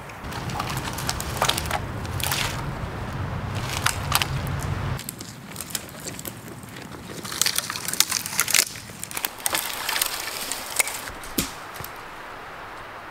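Dry dead branches and twigs cracking and crunching in irregular snaps as wood is gathered, with a low rumble under the first five seconds that cuts off abruptly.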